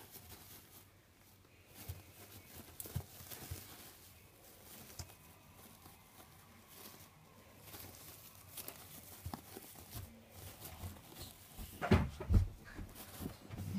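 Guinea pigs rustling and shuffling through wood-shaving bedding with small scattered clicks and rustles, then a louder run of low thuds near the end.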